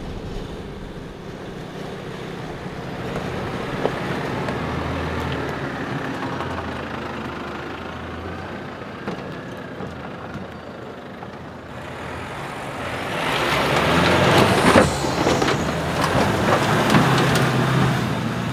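Diesel 4WD ute engine running steadily as it drives a dirt track. About twelve seconds in it gets much louder as the engine is floored in low-range second gear with the rear locker in, the tyres spinning through slushy mud with a rough crackle of flung mud and stones.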